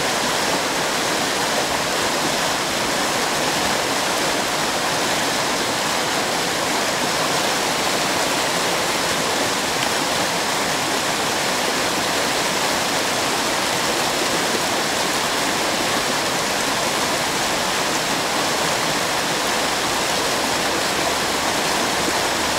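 Fast mountain river running over stones: a steady, even rush of water.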